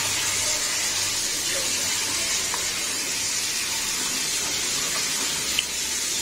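A steady, even hiss with no pitch that holds throughout, with a faint click about five and a half seconds in.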